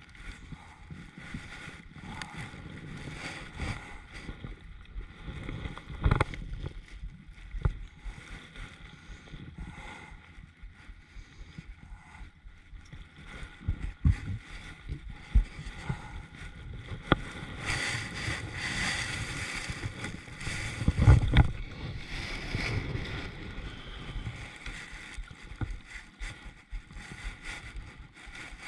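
Scattered knocks and bumps on a fishing kayak, the loudest about six and twenty-one seconds in, over steady wind noise on the microphone.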